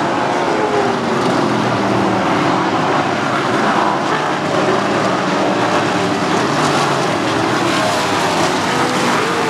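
A field of winged 360 sprint cars racing on a dirt oval. Their V8 engines run at high revs, with the pitch rising and falling as cars go through the turn and pass by.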